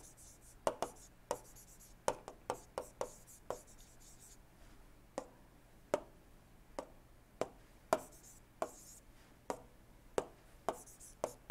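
Stylus tip tapping and clicking on a tablet screen while handwriting: about twenty faint, short clicks at irregular intervals, with a pause of over a second midway.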